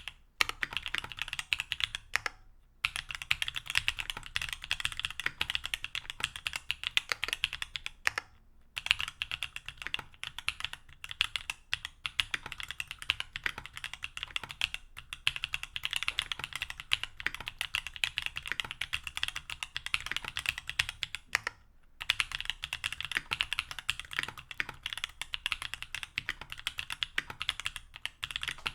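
Steady fast typing on a mechanical keyboard with TTC Holy Panda tactile switches in an aluminium plate and GMK keycaps, a dense run of keystroke clacks with three short pauses.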